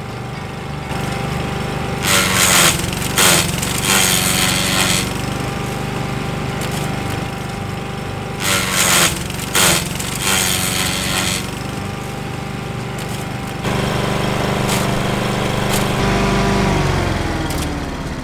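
Masport petrol lawn mower engine running while leafy branches are fed into it. The blade shreds them in two loud spells of chopping, each a few seconds long. Near the end the engine note falls as the mower winds down.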